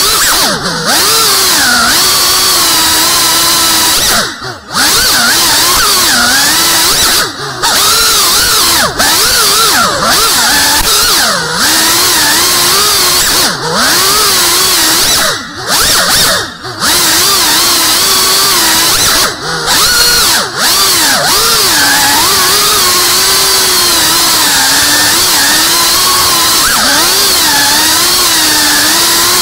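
Brushless motors and propellers of a GEPRC 3.5-inch FPV quadcopter in flight: a loud buzzing whine whose pitch keeps rising and falling with the throttle. It cuts out briefly several times, about five brief drops.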